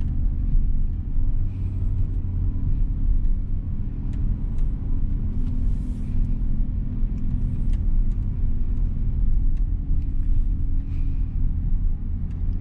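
Inside the cabin of a 2022 Mitsubishi Xpander CVT pulling uphill in the transmission's Ds mode: a steady low engine hum over tyre and road rumble.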